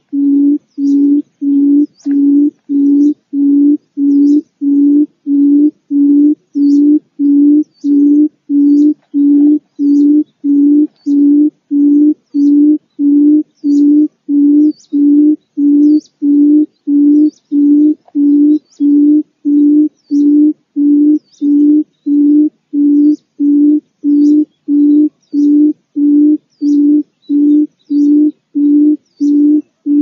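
Barred buttonquail calling: a low hooting note near 300 Hz repeated about one and a half times a second in an unbroken series. This is the female's advertising call.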